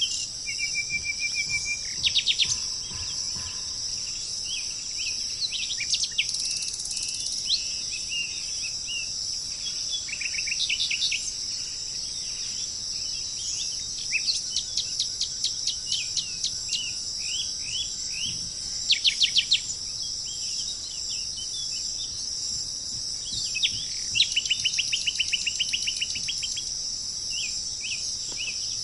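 Several songbirds chirping and trilling in quick runs of repeated notes, over a steady high-pitched drone of insects.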